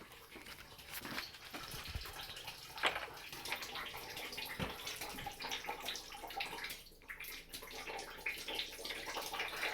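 Water trickling and dripping, with a few soft knocks scattered through it.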